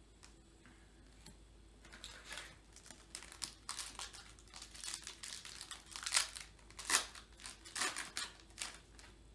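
A trading-card pack's wrapper being torn open and crinkled by hand. Irregular sharp crackles begin about two seconds in and die away shortly before the end.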